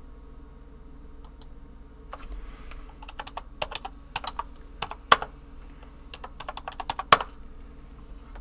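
Typing on a computer keyboard: a quick run of keystrokes lasting about five seconds, with two louder key strikes, the last a little after seven seconds in.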